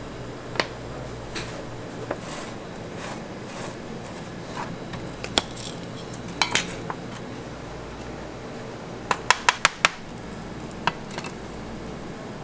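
Aluminium chiffon cake tube pans clinking and knocking as they are handled and the cakes are worked out of them: scattered sharp knocks, with a quick run of five about nine seconds in, over a steady background hum.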